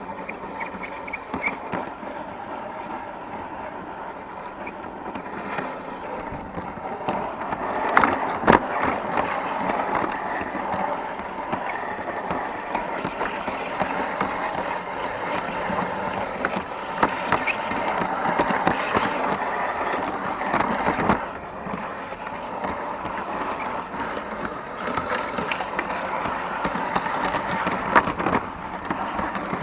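G scale model train running along garden track, heard from on board the wagon: a steady rolling clatter of wheels on rail with sharp clicks at the rail joints, loudest around the middle.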